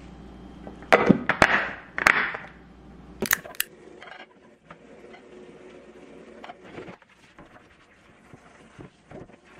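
Metal tongs clacking and scraping against a plate and a stainless steel container as pieces of potato pancake are lifted across, with a few loud scrapes and clicks in the first couple of seconds. After that come faint clinks of dishes being washed under a running tap.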